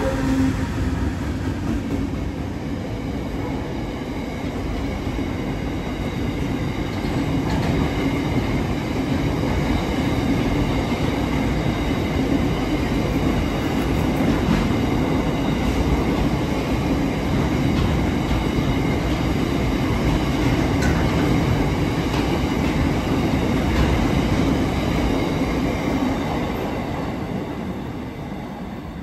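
Freight train of tank-container wagons rolling past on the rails: a steady rumble and clatter of wheels that swells in the middle and fades near the end as the last wagons go by.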